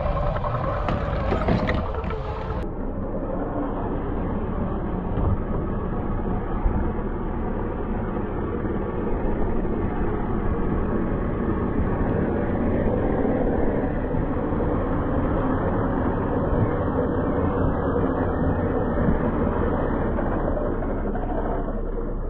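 Background music that cuts off about three seconds in, giving way to the steady whir of an RC scale crawler's electric motor and gear drivetrain as the truck drives over sand.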